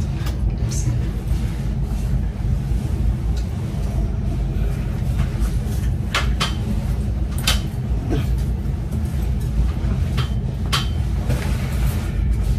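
Rustling of clothes and bedding with scattered short knocks as a fully dressed person climbs onto a bed and lies down, over a steady low rumble.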